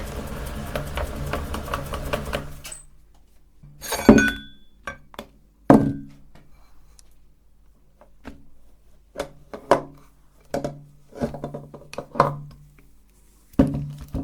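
Electric meat grinder running with a crackle of chocolate cubes being crushed, cutting off after about two and a half seconds. A series of separate knocks and clinks follows, like metal and hard parts being handled.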